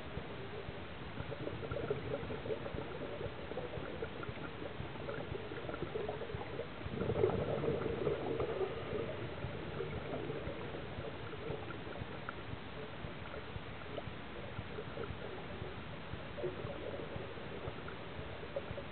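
Underwater ambience through a camera housing: a steady watery hiss, with a louder gurgle of scuba regulator exhaust bubbles about seven seconds in, as the diver breathes out.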